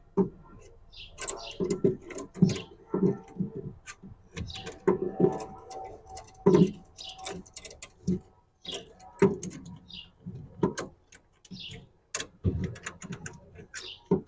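Irregular clicks, taps and light jangling rattles of hardware being handled and fitted, with some duller thuds in between.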